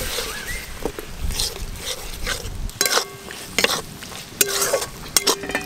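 Metal spatula stirring and scraping thick masala paste in a metal wok, with the paste sizzling. From about three seconds in, the spatula knocks against the wok several times with short ringing clanks.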